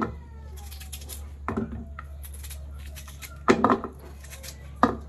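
Kitchen knife peeling a jicama (singkamas): four crisp knife cuts and knocks, the loudest a short cluster about three and a half seconds in, over a steady low hum.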